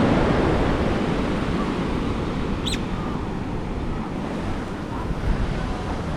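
Ocean surf washing on the shore, loudest at first and then easing off. A short high chirp sounds about halfway through.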